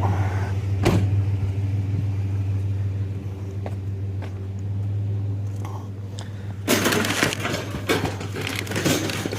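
A car's engine idling with a steady low hum and a click about a second in. From about two-thirds of the way in, a run of loud, irregular clattering noises.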